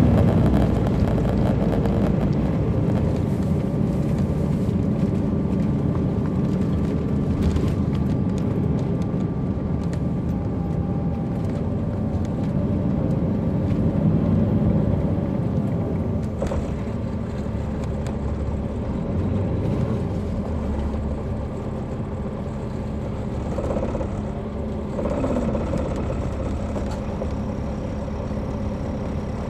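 Caterpillar C13 ACERT diesel engine of a 2007 MCI D4500CL coach, heard from on board while the bus is driving. It is a steady low drone with road noise, growing gradually a little quieter.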